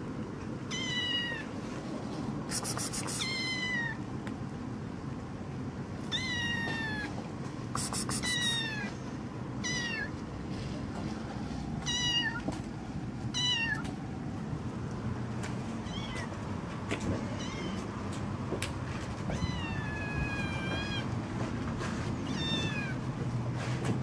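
A black-and-white kitten meowing over and over: about a dozen high mews, each falling in pitch, one every second or two, with a few longer calls near the end.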